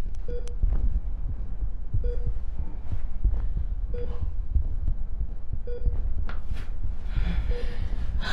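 Hospital patient monitor beeping a short, evenly spaced tone about every two seconds, over a steady deep low rumble.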